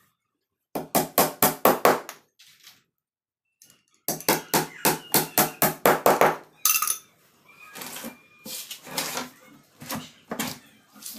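A hammer driving nails into a plywood speaker cabinet: two quick runs of sharp blows, about five a second, separated by a pause of roughly two seconds. Lighter, scattered knocks follow in the last few seconds.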